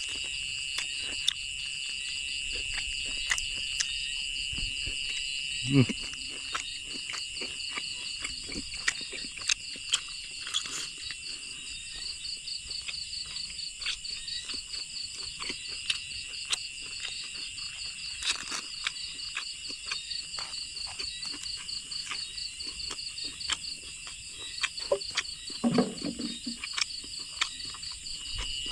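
Steady chorus of insects such as crickets: several unbroken high trills, one of them rapidly pulsing, with scattered small clicks and a couple of short low sounds about six seconds in and near the end.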